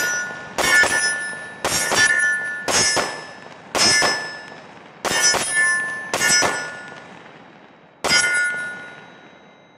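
Seven shots from a Glock 20 10mm pistol, each followed by the clang of a steel plate target ringing out. They come about a second apart, with a longer pause before the last shot near the end, whose ring fades away.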